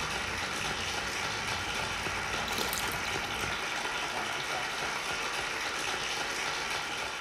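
Steady hissing, rushing noise, with a brief sharper crackle about two and a half seconds in.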